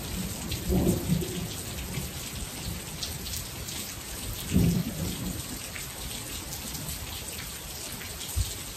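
Heavy rain pouring steadily, a loud hiss of many drops, with two low rumbles about a second in and near the middle.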